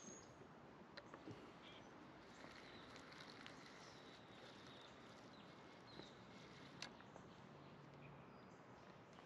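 Near silence: faint outdoor ambience with a few soft clicks, the sharpest about seven seconds in.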